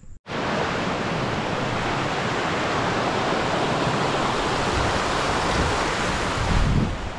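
Steady rush of a creek running high after recent rains. It cuts in abruptly just after the start and drops to a lower level near the end.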